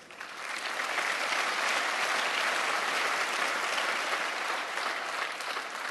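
Audience applauding, swelling over the first second, holding steady, then fading out near the end.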